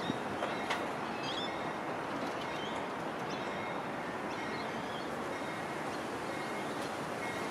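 Indian Pacific stainless-steel passenger carriages rolling slowly past, a steady noise of wheels on rail, with small birds chirping briefly now and then.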